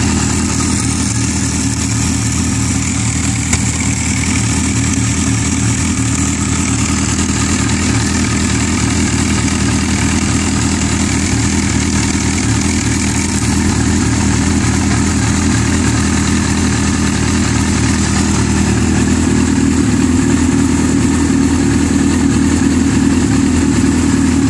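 Yamaha R6 inline-four engine idling steadily, its cam chain held by a worn screw-type tensioner whose spring can no longer keep the chain tight. From about three quarters of the way in the sound gets a little louder and fuller as the slack timing chain starts to get noisy.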